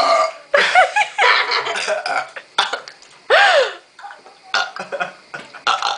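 A person burping loudly several times in a row, deep burps forced up after chugging soda pop for a burping contest.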